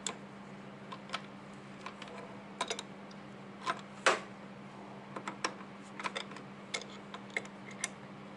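Metal hand tools, a wrench and socket, clinking and tapping irregularly against the scooter engine's flywheel and casing, with one louder clink about four seconds in. A steady low hum runs underneath.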